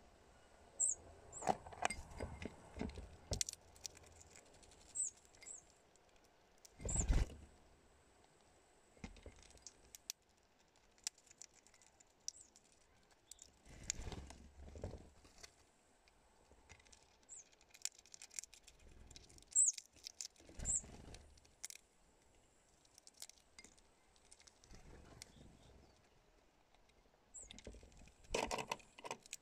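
Birds at a feeder: scattered taps, scratches and rustles as a hawfinch and other small birds move on a glass and plastic feeding tray, with several short, very high chirps scattered through.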